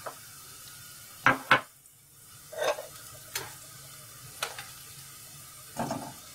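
Hot oil in a wok sizzling faintly around whole red chillies and cumin being fried dark brown, broken by sharp metal clinks and knocks of a wire skimmer and steel utensil against the pan. The two loudest knocks come close together about a second and a half in, with more clatter near the end.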